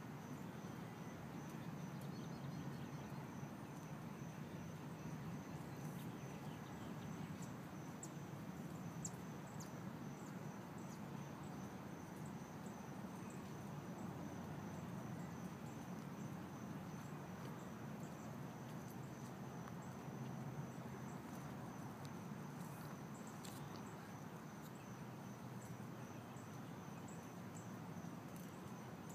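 An insect trilling: a steady, high, finely pulsing note over a faint low background rumble, with a few faint clicks.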